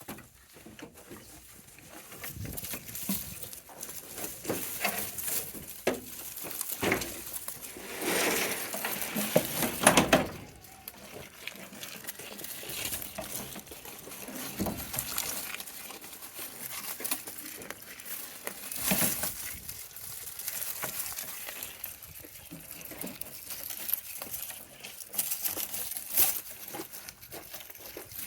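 Irregular rustling and shuffling in grass as goats on leads stop to graze, with small clicks throughout and a longer, louder rustle about eight seconds in.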